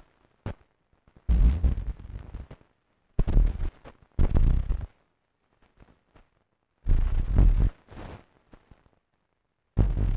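Soundtrack of an experimental handmade film: about five short bursts of harsh, bass-heavy noise, each under a second, with silence between them.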